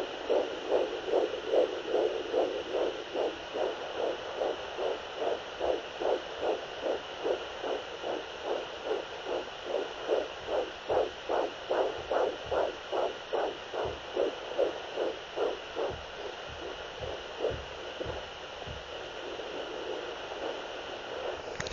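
Fast heartbeat, about three beats a second, over a steady hiss; the beats fade away about three-quarters through, leaving only the hiss.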